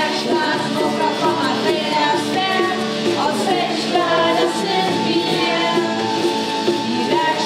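Pop band playing a song, with several voices singing together over the instruments.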